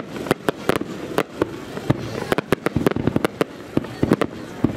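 Fireworks display: a rapid, irregular string of sharp bangs from bursting shells, about three or four a second.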